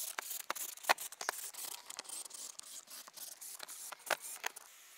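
Scattered sharp clicks and scraping as screws are driven around the flange of a plastic motorhome roof vent with a Ryobi 18V cordless drill-driver. The loudest click comes about a second in.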